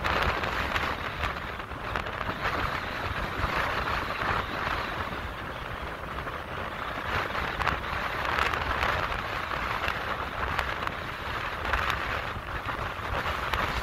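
Strong wind buffeting the microphone, a continuous low rumble, over a steady hiss of wind blowing across the water, rising and falling slightly with the gusts.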